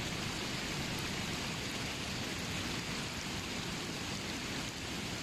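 Rainwater runoff from a night of heavy rain rushing down a gravel road, a steady even rushing.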